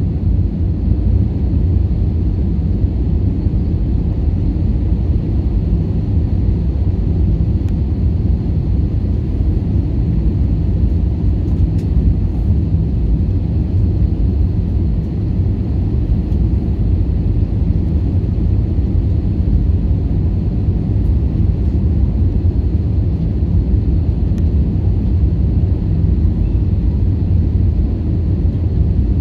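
Steady low rumble inside the cabin of an Airbus A321 descending on approach to land: engine and rushing-air noise.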